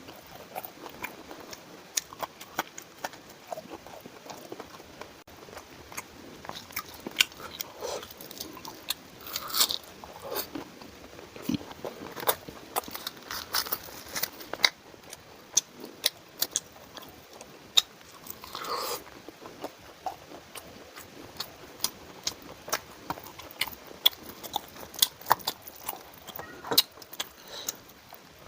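Close-miked eating: a person biting and chewing food, with many sharp crunchy clicks at an irregular pace and a few louder, longer crunches.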